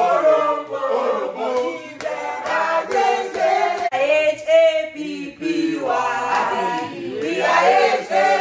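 A group of men and women singing a nursery rhyme together in chorus.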